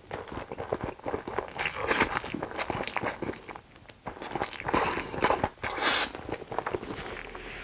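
Close-miked eating sounds: chewing, biting and wet mouth smacks in an irregular patter, with a brief louder hissing burst about six seconds in.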